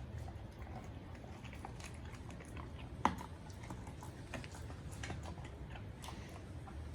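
German Shepherd crunching and chewing raw meat and bone, a run of irregular sharp cracks and clicks with one loud crack about three seconds in.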